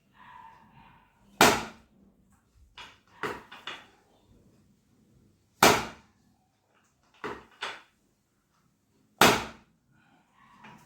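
Three loud, sharp thuds about four seconds apart, with softer knocks in between, from chiropractic adjustment thrusts on a patient on the treatment table.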